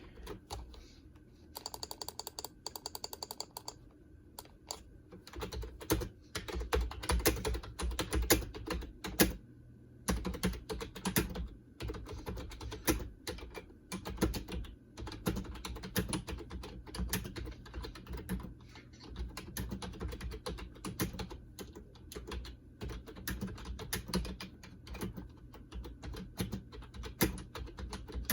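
Typing on a Lenovo KUF0452 rubber dome keyboard: a quick, even run of clicks about two seconds in, then steady, irregular keystrokes from about five seconds in, with a brief pause around ten seconds.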